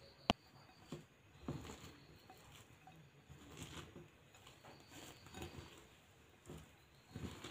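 Hands mixing shredded cabbage with flour and spices in a bowl: soft, irregular rustling and squishing strokes. A single sharp click about a third of a second in is the loudest sound.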